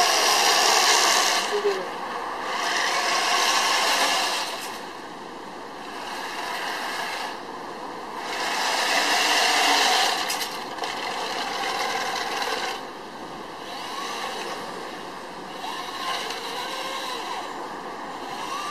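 Radio-controlled toy tank driving on asphalt: a noisy whir from its motors and tracks that swells and fades every few seconds as it moves and stops.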